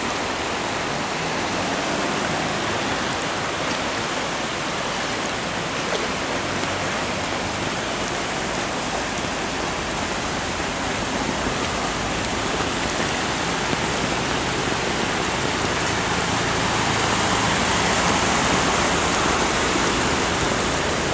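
Heavy rain pouring down with floodwater rushing, a steady hiss of water that grows a little louder near the end.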